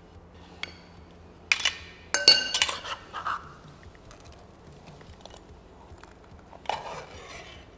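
Metal potato ricer clinking and knocking against a glass bowl as cooked potatoes are pressed through it. There are several sharp clinks with a brief ring, the loudest between two and three seconds in, and a shorter scraping clatter near the end.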